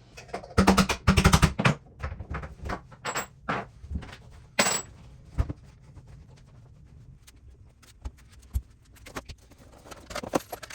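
A quick run of sharp metallic taps and knocks about a second in, then scattered single knocks and clicks: a door's hinge pins being worked out and the door handled off its hinges.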